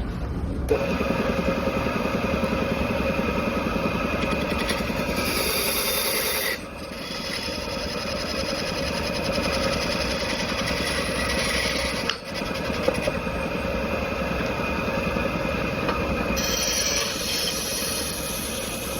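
Steady machine noise running with a hum of sustained tones, changing abruptly a few times.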